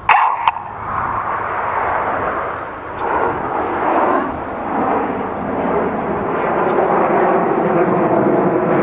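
Jet noise from a formation of BAE Hawk trainers and their Rolls-Royce Turbomeca Adour turbofans: a steady rushing that builds slowly as the jets fly the loop. The sound begins abruptly, with two sharp knocks in the first half second.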